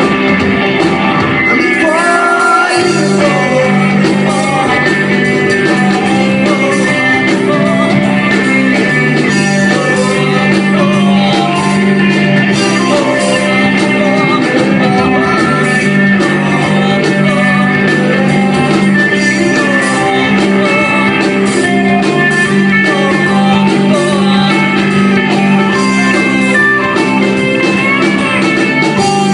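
A live rock band playing loud, with a wavering melody line over steady sustained chords.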